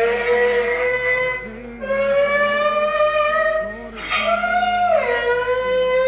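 A song with a singer holding long, slightly wavering notes, phrase after phrase, with short breaks between phrases.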